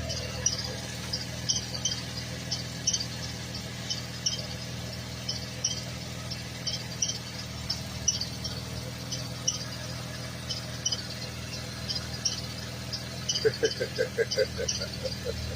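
2013 Buick Enclave's 3.6-litre V6 idling steadily, with short high chirps repeating about once or twice a second over it. Near the end there is a quick run of lower clicking pulses.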